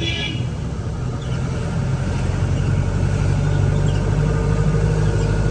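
Jeep engine running, heard from inside the cabin: a steady low hum that grows a little louder about two seconds in.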